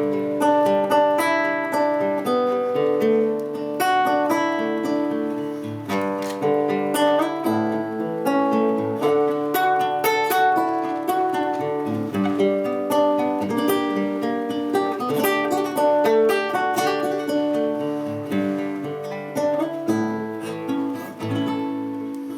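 Acoustic guitar playing an instrumental introduction, individual notes picked and ringing over chords.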